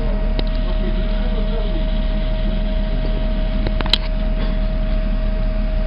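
Steady low machinery hum with a constant tone, typical of a ship's running engines or generators heard on deck, with one sharp click about four seconds in.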